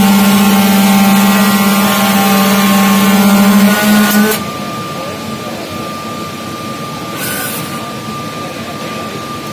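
Computerised sole-pattern cutting machine with twin cutting heads running loudly with a steady hum, then stopping abruptly about four seconds in. A quieter steady whine stays on afterwards, with a brief hiss about seven seconds in.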